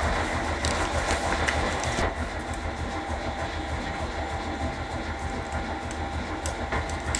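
A letterpress printing press running with a steady, rhythmic mechanical clatter.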